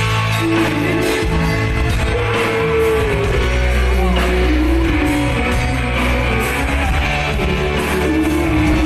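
Live rock band playing with a female singer on a microphone, her voice carrying the melody in long held notes that slide between pitches over guitar and a heavy low bass.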